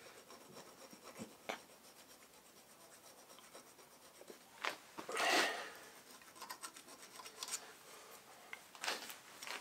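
Faint scraping and rubbing of a hand deburring an aluminium block's freshly milled edge, with a few short scrapes, the loudest about five seconds in.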